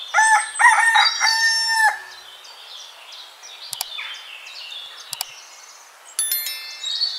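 A rooster crowing once in the first two seconds, followed by birds chirping, with two short clicks in the middle.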